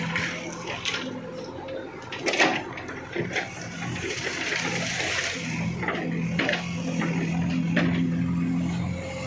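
Diesel engine of a JCB backhoe loader running steadily, its hum growing stronger about halfway through, with scattered sharp knocks.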